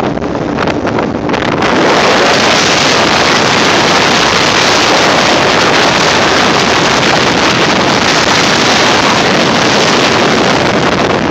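Small motorboat under way: wind rushing over the microphone, mixed with the motor and the hull running through the water. The noise is gusty at first and settles into a steady loud rush about a second and a half in.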